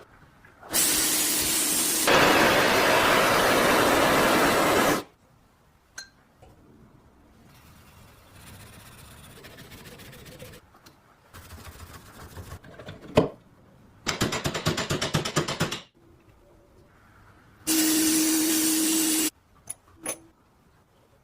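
Workshop power tools run in several bursts of a few seconds each, the longest near the start. Between the bursts, single clicks and knocks of parts being handled can be heard.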